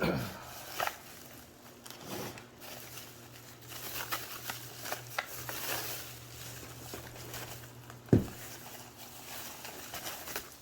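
Bubble wrap and packaging crinkling and rustling as it is handled, with scattered small clicks and one sharper knock about eight seconds in, over a faint steady low hum.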